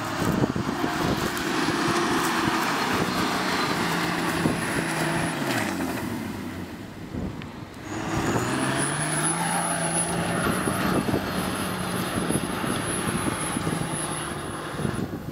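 4x4 SUV engine revving under load on an off-road climb. The revs fall away about six seconds in and climb again from about eight seconds.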